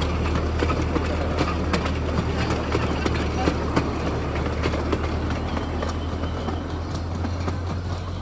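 A 7.25-inch gauge miniature train rolls past, its wheels clicking irregularly over the rail joints above a steady low hum, getting slightly quieter toward the end.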